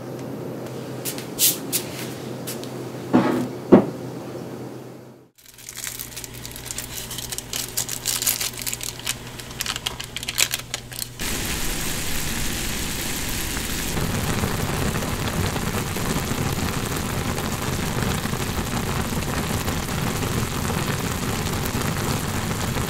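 A plastic instant-noodle packet crinkling in the hand, with a few sharp knocks, then a spell of dense crackling and rustling. About eleven seconds in, this gives way to a pot of water at a hard boil, with ramen noodles cooking in it: a steady bubbling hiss.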